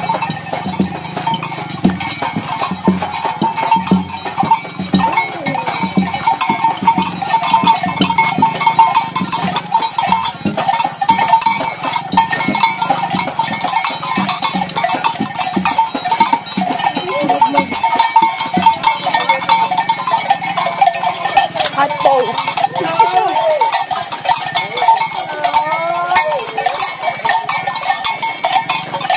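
Many cowbells worn on costumes jangling and clanking continuously as the wearers walk, with voices in the crowd.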